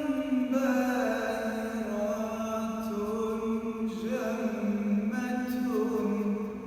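A man singing an Arabic devotional song in praise of the Prophet, in long held, ornamented notes that step from pitch to pitch; the phrase fades away at the end.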